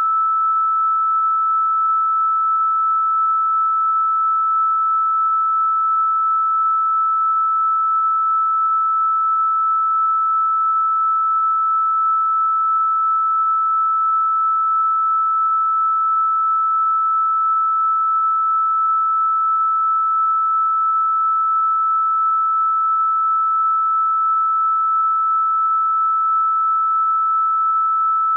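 A single pure electronic sine tone held at one steady, fairly high pitch, unchanging in pitch and loudness, with nothing else in the sound.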